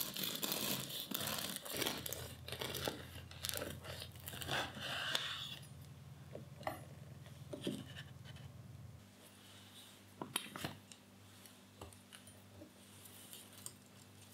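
A knife sawing through the hard crust of a crusty homemade bread loaf, with dense crackling and crunching for about five seconds. Then come a few lighter crackles and a couple of sharp knocks about ten seconds in.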